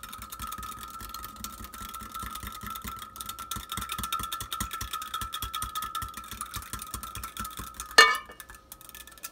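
Metal spoon stirring yeast and oil into warm water in a glass measuring cup, clicking and scraping rapidly against the glass, which rings with a steady high tone. About eight seconds in the spoon strikes the glass with one loud, sharp clink.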